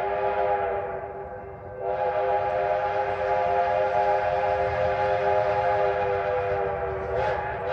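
A steam locomotive whistle blows in one long, steady held note. It fades and thins from about a second in, then comes back to full strength, and it wavers briefly near the end.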